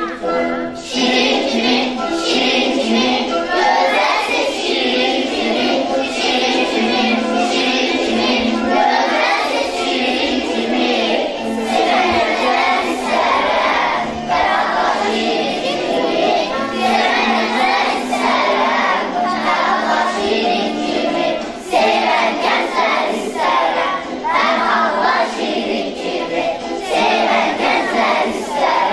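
A children's choir singing with instrumental accompaniment, the voices coming in about a second in.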